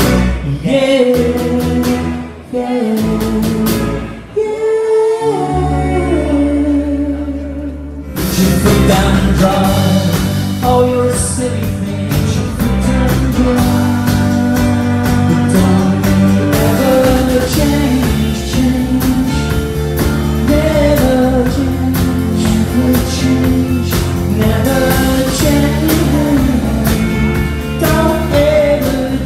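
Live band playing: acoustic guitar, electric guitars and drums. Held notes and a gliding tone open the passage, then the full band comes in about eight seconds in.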